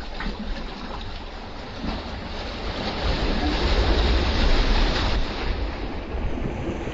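Sea waves surging into a narrow gap between breakwater rocks, white water rushing and splashing over the rocks. The rush builds from about a third of the way in and is loudest past the middle.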